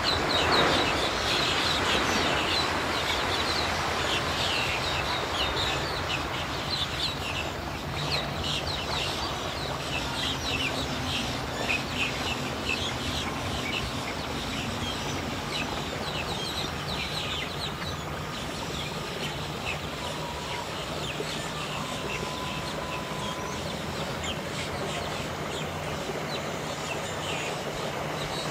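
Mercury outboard motor on a bass boat running at low speed with a steady low hum. Birds call over it in quick chirping bursts, growing sparse after about eighteen seconds.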